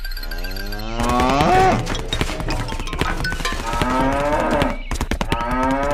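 Cow mooing: long, drawn-out calls that rise in pitch, one just after the start, another past the middle and a third beginning near the end, with sharp clicks and taps between them.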